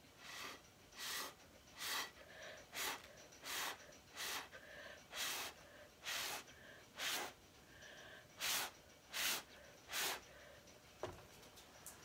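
A person blowing short, repeated puffs of breath through a drinking straw onto wet pour paint on a canvas, about a dozen puffs in quick succession. A single knock comes near the end.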